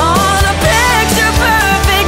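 Background pop-rock music with a steady drum beat under a gliding melody line.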